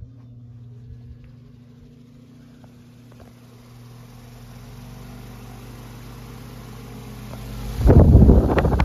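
A 1960s Dayton pedestal fan running, its electric motor giving a steady hum that grows a little louder. About eight seconds in, the fan's airflow hits the microphone with loud wind buffeting.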